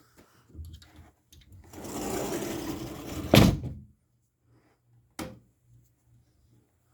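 A scraping rustle lasting about a second and a half, ending in one loud sharp knock, then a single click about two seconds later.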